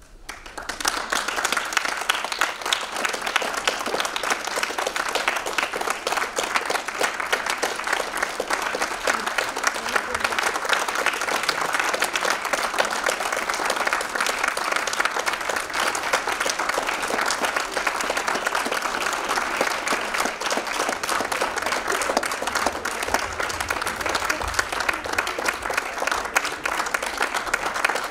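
Audience applause breaking out suddenly at the end of a show and continuing as steady, dense clapping.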